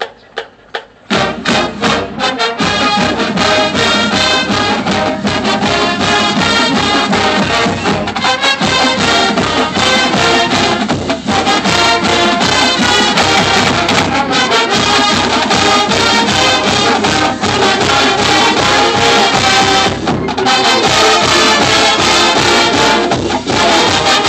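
High school marching band playing its field show, with brass, sousaphones and front-ensemble percussion. A few evenly spaced clicks come first, then the full band comes in loud about a second in and plays on.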